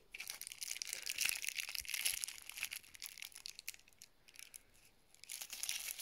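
Thin clear plastic bags crinkling and rustling as small inflation adapters wrapped in them are handled in the fingers. There are irregular crackles and ticks; they die down past the middle and pick up again near the end.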